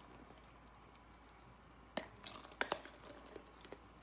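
Plastic spatula scooping mayonnaise from a jar and knocking it off into a glass bowl of chopped meat and onions. After a quiet start, a sharp click about two seconds in and a few quick clicks and wet scrapes follow.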